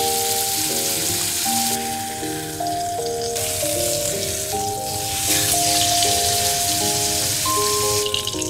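Beef frying in butter in a pan, a sizzling hiss that jumps in level a few times, under background music of held melodic notes.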